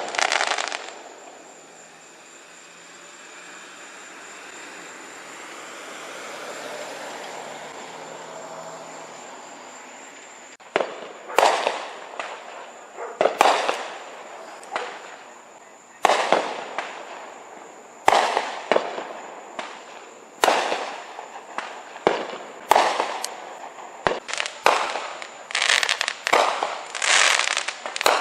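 Fireworks going off. A swelling hiss comes first with no bangs. From about ten seconds in there is a bang roughly every two seconds, and the bangs come thick and fast near the end. A thin, steady high tone sounds behind them.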